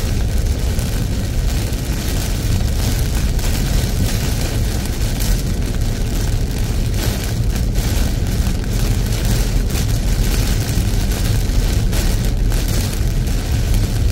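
Heavy rain falling on a moving car's roof and windscreen, heard from inside the cabin as a steady loud hiss over a low rumble of road and engine noise.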